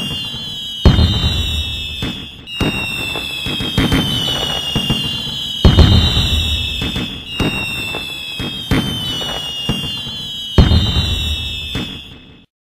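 Fireworks going off: falling whistles of rockets over crackling, with about four loud bangs and deep booms. It cuts off suddenly near the end.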